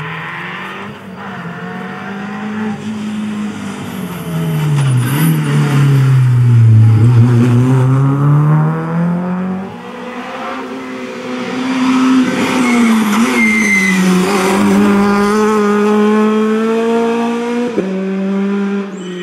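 Rally car engines at high revs on a tarmac stage, the engine note repeatedly falling and rising through braking and gear changes. There are two loud passes, one peaking about a third of the way in and another through the second half; the cars include a Renault Clio and a Citroën C2.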